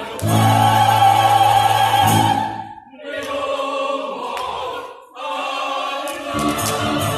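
Music with a singer holding long notes with vibrato, in three phrases broken by short pauses about three and five seconds in.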